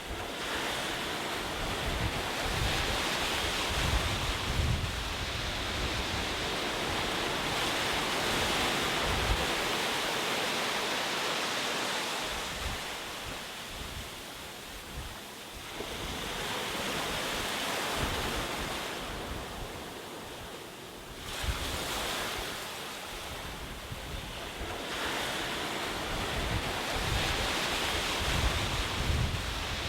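Ocean waves breaking on a shore, a continuous surf hiss that swells and recedes as each wave comes in, about every five to six seconds, with low rumbling in the louder surges.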